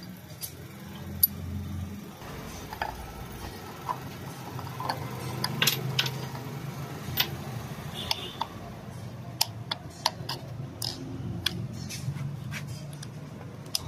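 Small metal parts of a VE-type diesel injection pump clicking and clinking as they are handled and fitted into the pump housing, the clicks coming closer together in the second half, over a low steady hum.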